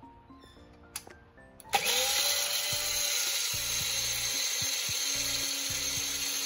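Electric mixer grinder starting up about two seconds in, its whine rising briefly as it spins up, then running steadily. It is grinding soaked mustard and poppy seeds with green chillies and garlic in water into a wet paste. Before it starts there is soft background music and a click about a second in.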